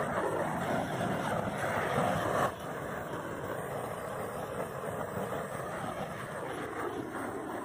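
Propane torch burner, the large weed-burner kind fed from a propane tank, running with a steady rushing roar as it chars the wood of a chair. It drops abruptly to a quieter level about two and a half seconds in.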